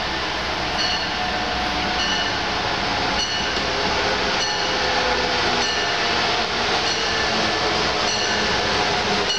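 Amtrak passenger train approaching and running into the station: a steady rumble and rush of the train, growing slightly louder as it draws near, with a short high ringing tone repeating about once a second.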